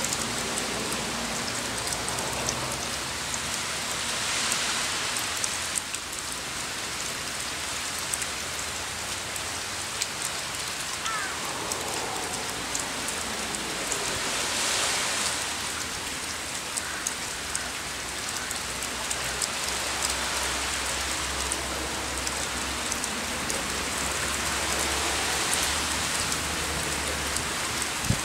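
Steady rain falling, an even hiss dotted with the small ticks of individual drops, swelling slightly a few times.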